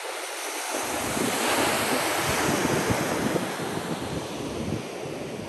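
Ocean surf washing in below, a steady rushing of breaking waves that swells around the middle. Wind buffets the microphone, adding a low rumble from about a second in.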